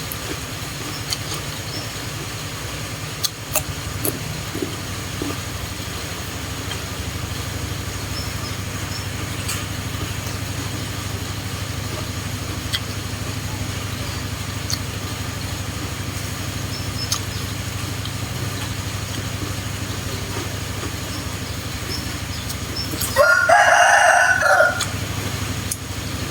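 A rooster crows once, loudly, for about a second and a half near the end, over a steady low hum and a few faint scattered clicks.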